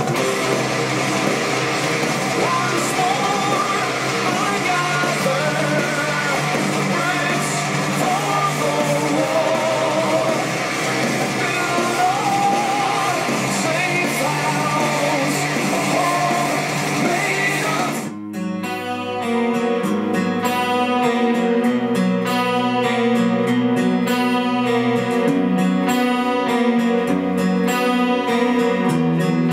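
Recorded music playing: a full-band song with a singing voice, which cuts off abruptly about eighteen seconds in and is replaced by a track led by plucked guitar.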